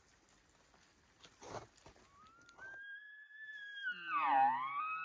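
Faint footsteps in grass, then a bull elk bugle: a clear whistle that rises and holds high for over a second, then falls into a lower, rough grunting part near the end.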